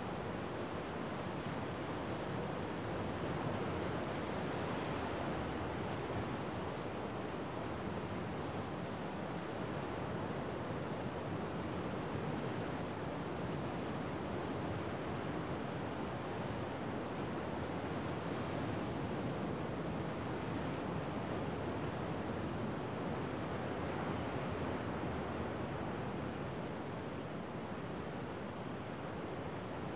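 Rough winter Sea of Japan surf breaking and churning over a rocky shore: a continuous wash of waves with gentle swells in loudness rather than distinct single crashes.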